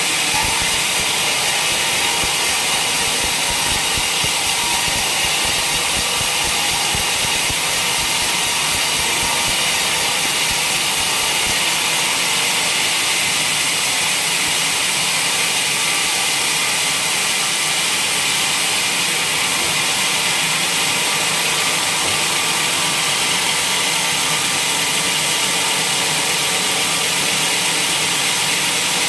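A sawmill running steadily: engine drone under a loud, even, high hiss from the saw.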